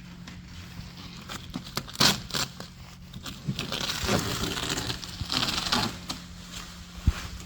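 Irregular rustling and crinkling with scattered light knocks, over a low steady hum.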